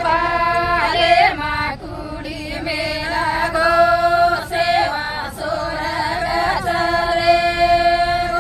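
Group of Banjara women singing a traditional folk song together without instruments, in long held notes broken into short phrases.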